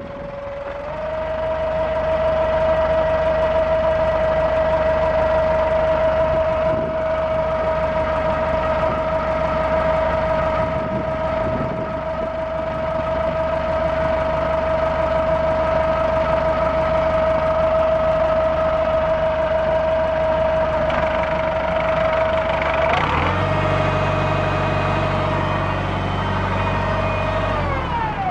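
New Holland 6640SL tractor's 304-cubic-inch four-cylinder diesel running steadily with a strong high whine over the engine note, growing louder about a second in. Late on the sound turns heavier and deeper for a few seconds, then the pitch falls away near the end.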